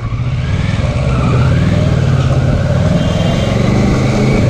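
Kawasaki Versys 650 parallel-twin motorcycle engine running at low speed, heard from the rider's seat. The engine note rises a little about a second in, then settles again.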